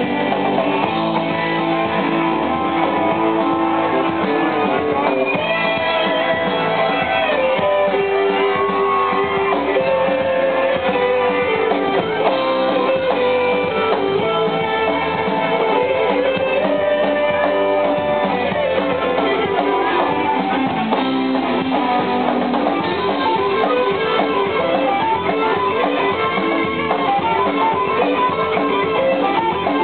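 Live rock band playing an instrumental stretch with electric guitar to the fore, its melody lines sliding and bending over the band.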